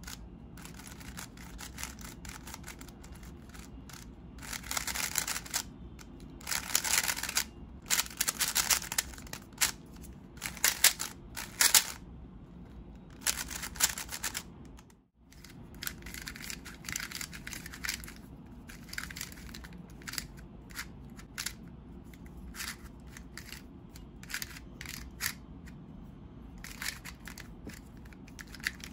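Speed cube being turned fast by hand: plastic layers clacking and clicking in quick flurries of turns. There is a sudden brief dropout about halfway through, then lighter, scattered clicking.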